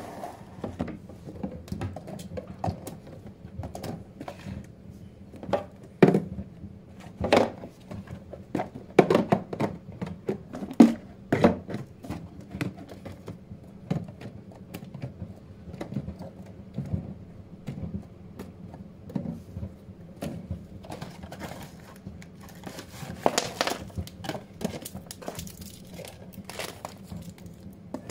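Irregular knocks, clicks and clatters of kitchen items being handled and set down, over a steady low hum.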